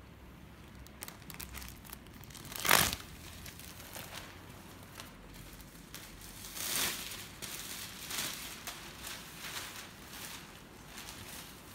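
Thin polyethylene disposable apron crinkling as it is handled, with a sharp rip about three seconds in as it is torn off the apron pad, and another loud rustle of plastic near seven seconds as it is lifted and shaken out.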